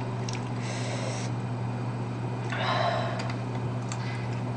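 Quiet eating sounds from a person with a mouthful of food: a short soft breathy hiss about a second in and a longer one near three seconds, over a steady low electrical hum.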